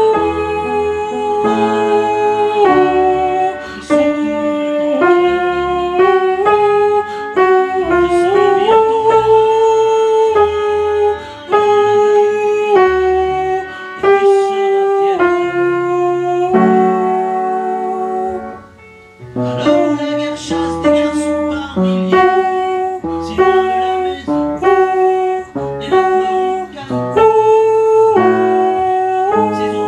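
Upright piano playing chords, with a held melody line sustained over them. The music eases off briefly a little past the middle, then carries on.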